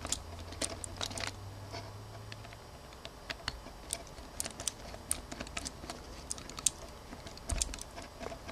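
Faint, irregular small clicks and taps of a tiny Phillips screwdriver and fingers working the tripod screws and plastic body of a compact digital camera.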